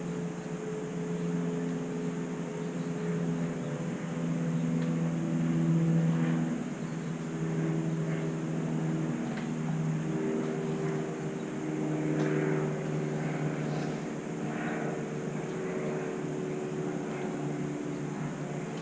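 A steady engine-like drone whose pitches shift slowly, with a few faint clicks.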